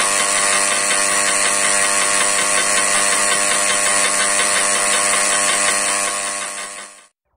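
Handheld power engraving pen buzzing steadily as its tip stipples dots into polished black granite. It stops near the end.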